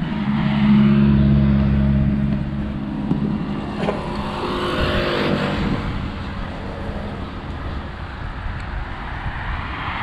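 Road traffic passing close by: a small utility truck's engine running with a steady low hum, loudest in the first two or three seconds, then fading, with another swell of traffic noise around the middle.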